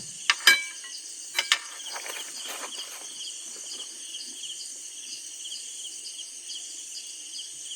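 Crickets and other night insects chirping in a steady pulsing chorus. In the first second and a half come a few sharp clinks of utensils as food is served, followed by some light scraping.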